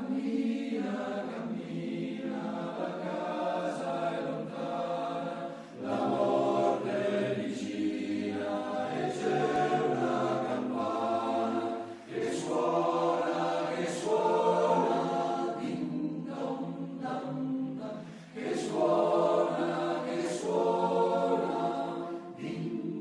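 A choir singing a slow song in held chords, phrase by phrase, with short breaks between phrases.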